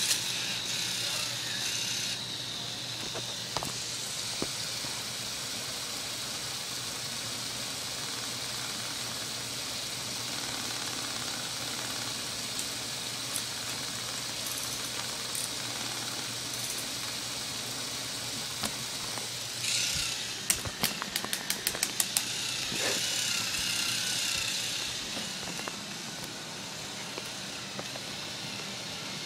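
K'nex roller coaster running: a steady motor hum and hiss throughout. About two-thirds of the way in comes a rattling stretch with a quick, speeding-up run of sharp plastic clicks as a train runs over the track.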